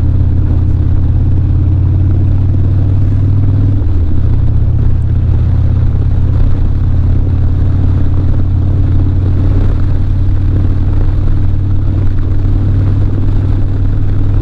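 Harley-Davidson Dyna's V-twin engine running steadily under way, over a constant rush of wind and road noise. The engine note shifts briefly about four seconds in.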